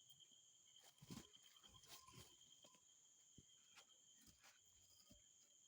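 Near silence, with faint steady high-pitched insect calls and a few faint scattered clicks.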